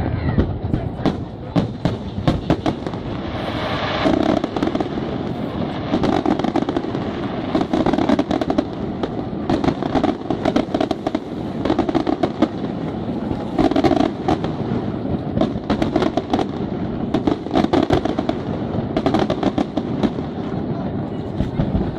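Aerial firework shells bursting in quick succession, with a continuous run of bangs and crackling.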